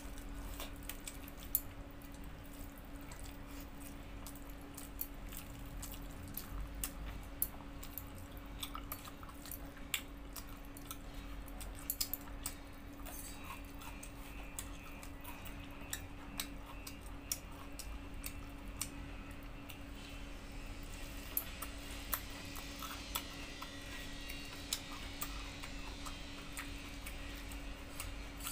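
Eating sounds from rice eaten by hand off a steel plate: scattered soft clicks and smacks of chewing and of fingers working the rice on the plate, over a steady low hum.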